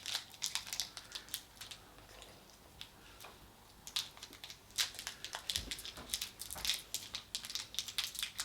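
Snack wrappers crinkling and crackling as they are handled, in irregular clusters of sharp little crackles, easing off for a couple of seconds partway through.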